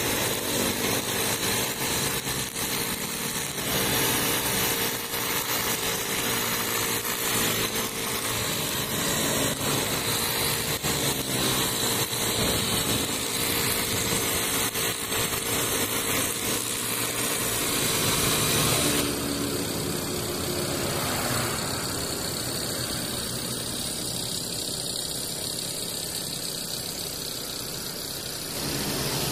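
Honda GX four-stroke brush cutter engine running steadily while its nylon trimmer line cuts grass. About two-thirds of the way through, the sound changes suddenly to a steadier, slightly quieter hum.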